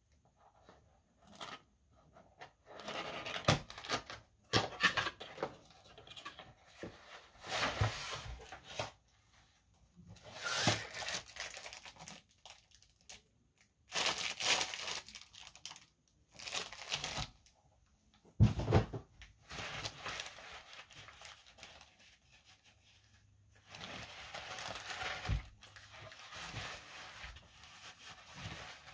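Clear plastic packaging crinkling and tearing in irregular bursts as it is handled and pulled open, with a few knocks of the box and its contents.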